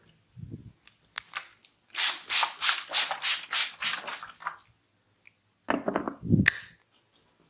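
Hands rubbing quickly over skin during a massage, about ten rapid strokes in a row, about four a second. Near the end come a few duller rubs and a single sharp click.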